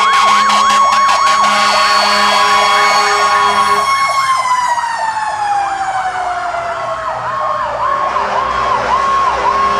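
Several fire truck sirens sounding together as the trucks pass: one yelps rapidly up and down, another holds a steady wail that slowly falls in pitch from about four seconds in, and near the end a siren cycles up and down with held high notes.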